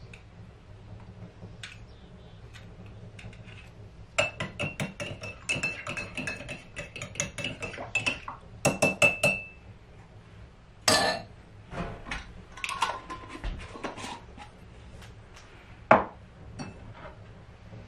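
Metal spoon stirring quickly inside a glass jar, clinking rapidly against the glass with a ringing tone for several seconds. This is followed by a few scattered knocks and a sharp tap near the end as the glass jar is set down on the counter.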